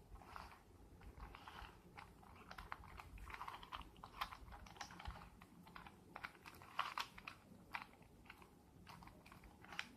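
Rubik's cube layers being twisted by hand in quick succession: faint, irregular plastic clicks and short scraping clacks as each face turns into place.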